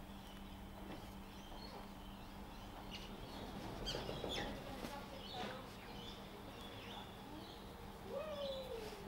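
Small birds chirping on and off over a steady low hum.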